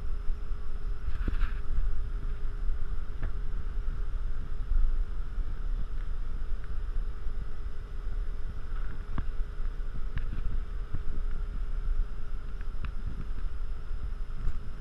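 Wind buffeting the camera's microphone in an uneven low rumble, over a steady background hum.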